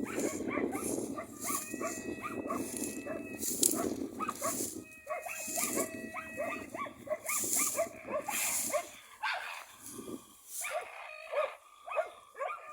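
Karelo-Finnish Laikas barking in rapid, overlapping barks, baying at a raccoon dog they have brought to bay. The barking thins out for a few seconds past the middle.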